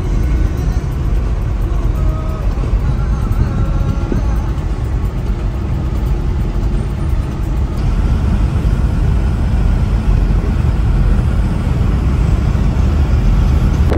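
A car driving on an open road, heard from inside the cabin: a steady low rumble of engine and tyres on tarmac.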